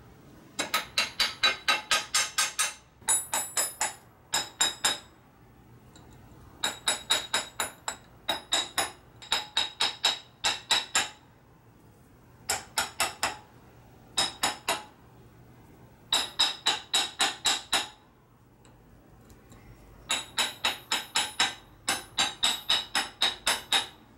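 A hammer tapping a new steel spindle onto a Dana 44 front axle's steering knuckle to seat it. The taps ring and come in quick runs of about five a second, with short pauses between runs.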